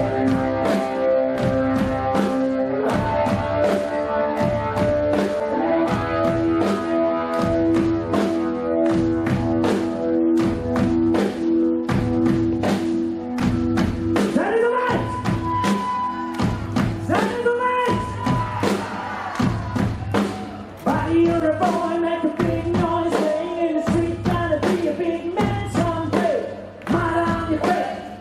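Live blues-rock band playing, with a drum kit keeping a steady beat under long held chords, and singing over it.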